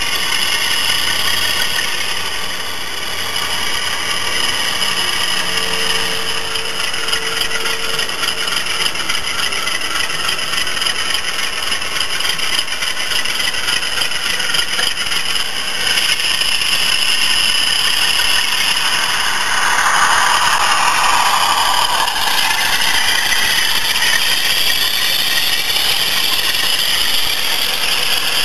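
Model diesel train running on garden railway track: the wheels rattle over the rails along with the running of its motor or sound-fitted diesel engine. It grows louder as the train comes close and passes about two-thirds of the way through.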